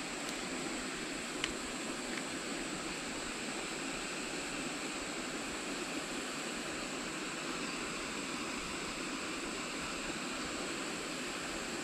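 Steady hiss of outdoor background noise with one faint click about a second and a half in.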